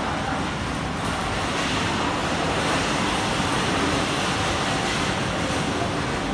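Steady background noise of a busy covered pedestrian walkway, an even rumble like distant road traffic.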